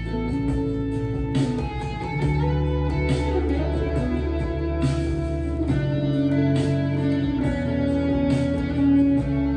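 Electric guitar playing a melody of held notes over a steady bass line, with a slow, regular beat.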